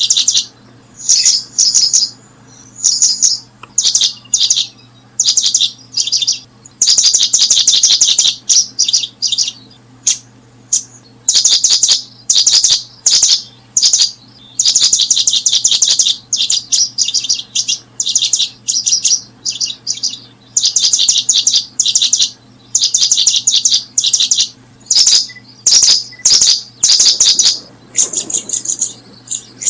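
Bird chirping: high-pitched, rapid rattling bursts of chirps, each about half a second to a second and a half long, repeated one after another with short gaps throughout.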